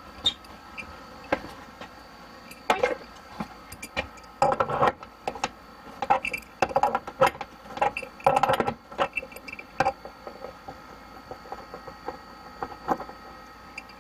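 Scattered clicks, knocks and rattles of hand work on PEX plumbing fittings and valves, loudest in the middle, over a steady faint hum.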